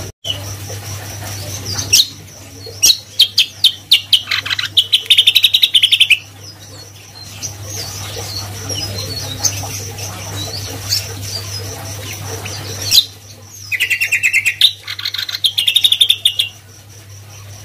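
Caged cucak kombo singing: two loud runs of rapid repeated chirps, the first about 2 s in lasting around four seconds and the second about 13 s in lasting around three seconds, with single sharp calls scattered between them.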